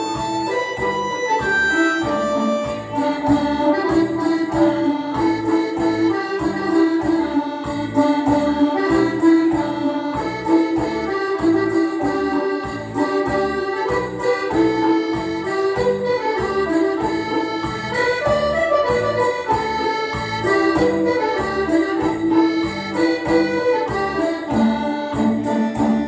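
Tày folk dance music played over the stage loudspeakers: a reedy melody over a steady, even beat, with small bells jingling along.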